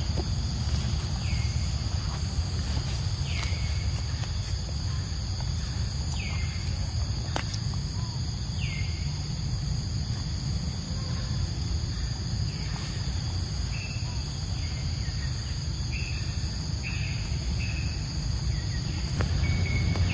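Outdoor ambience: a steady high-pitched insect drone, with short falling chirps every second or two that come faster near the end, over a low steady rumble.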